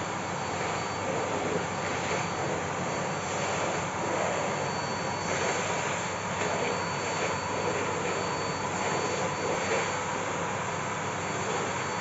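Bosch BGS21X320 bagless canister vacuum cleaner running steadily with a constant high motor whine. The suction noise swells slightly as the floor nozzle is pushed back and forth over the hard floor.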